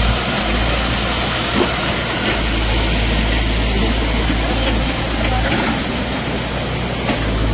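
Muddy landslide floodwater rushing loudly over rocks and debris, with a steady low rumble underneath.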